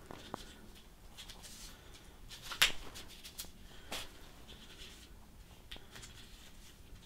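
Quiet handling of a brass threaded fitting and a roll of Teflon thread-seal tape: soft rustles and a few small clicks, the sharpest about two and a half seconds in.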